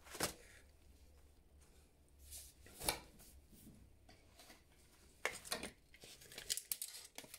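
Faint handling noises as a PVC pipe and tape measure are picked up: a couple of isolated clicks, then a run of clicks and rattles in the last two seconds.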